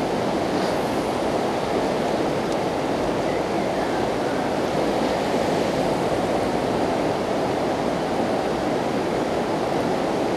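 Steady rush of a fast-flowing river running high after recent rain, an even wash of water noise with no separate events.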